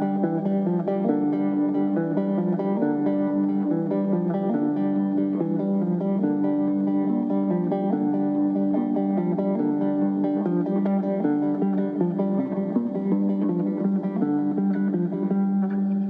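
Background guitar music: plucked notes ringing over sustained lower notes, at an even level throughout.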